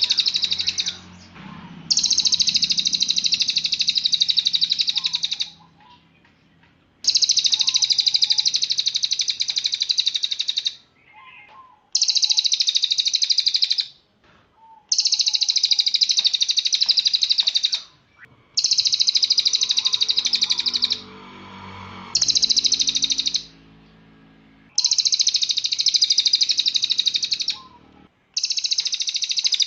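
Cililin songbird singing in loud, rapid-fire bursts of dense, high trilling, each lasting a few seconds and separated by short pauses.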